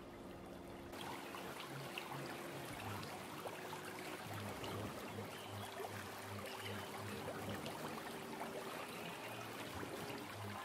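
A pop song played backwards: a low bass note pulsing about twice a second under sustained steady tones, with a dense crackling hiss coming in about a second in.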